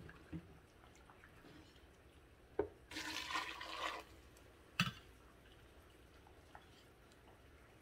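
Cooking liquid poured from a metal measuring cup into a plastic blender jar, one pour lasting about a second, about three seconds in. Light clinks and knocks of the cup against the pressure cooker's steel pot come before it and again near five seconds in.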